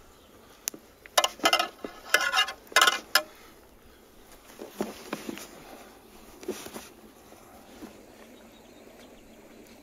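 Hands handling and folding the raw, wet cowhide flaps over the top of a stuffed cowhide sack: a quick cluster of rustling, flapping skin sounds in the first three seconds, then a few quieter touches.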